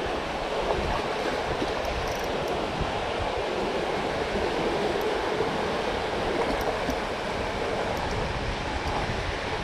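Fast, high floodwater in a creek rushing steadily past the bank, an even wash of water noise.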